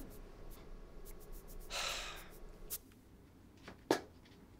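A person's breath, a sharp exhale or sigh about two seconds in, amid soft clicks and small handling taps, with one sharper click near the end.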